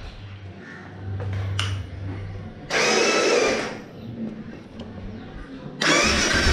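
Royal Enfield Classic 350's electric starter motor whirring in two bursts of about a second each, spinning freely without cranking the engine, which does not start: the sign of a failed one-way starter clutch. A steady low hum comes before the first burst.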